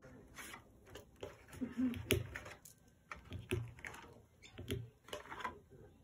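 Wax crayons being picked up and set down on paper over a tabletop: a scattered series of light taps and clicks, some with a soft thud.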